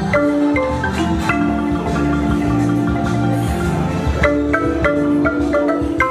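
Wooden marimba played with four mallets: a steady melody of struck, ringing notes, with chords and low notes under the tune.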